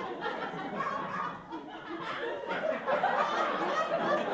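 Audience laughing, dipping briefly and then building again.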